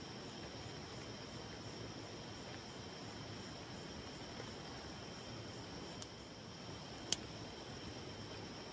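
Night insects chirring steadily in a continuous high drone, with a sharp click about seven seconds in.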